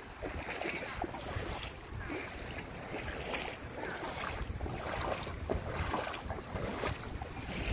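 Boots wading through floodwater on a road, a splash and slosh with each step about once a second, with a low rumble of wind on the phone's microphone.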